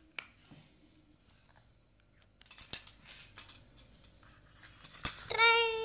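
Plastic clicks and rattling as the jar of a toy mixer-grinder is fitted and turned on its base. About five seconds in, a steady high hum starts: a child's voice mimicking the grinder running.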